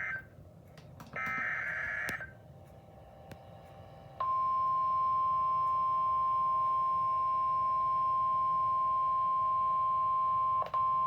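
Emergency Alert System SAME header data bursts, a warbling digital screech encoding a flash flood warning: one burst ends just at the start and another runs for about a second, a second in. About four seconds in the long steady attention tone begins and holds, with a brief dropout near the end.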